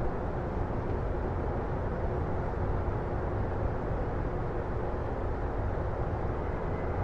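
Distant city ambience in a residential area at night: a steady low rumble of far-off traffic and city noise, with a faint steady hum.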